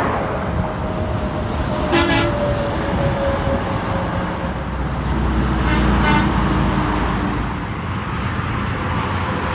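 Steady road traffic with a vehicle horn giving a short toot about two seconds in and two quick toots around six seconds in. A heavy vehicle rumbles past at the same time as the later toots.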